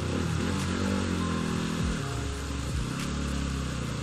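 Bajaj Pulsar NS200's single-cylinder engine running as the motorcycle is ridden, its pitch rising and falling with the throttle.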